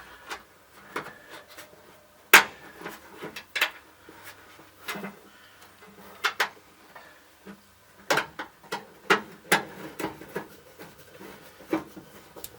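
Scattered clicks and knocks of metal parts and a screw being handled as a dash component is mounted back in place in a 1964 Dodge D100. There is one sharp knock about two seconds in and a run of clicks between about eight and ten seconds.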